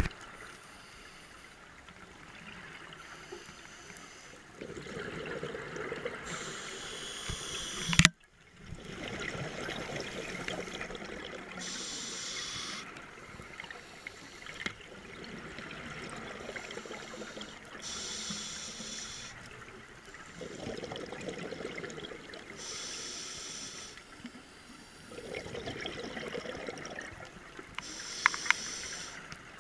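Scuba diver breathing through a regulator underwater: a hiss on each inhale, then a gurgle of exhaust bubbles on each exhale, about one breath every five seconds. A sharp click about eight seconds in, followed by a brief drop-out.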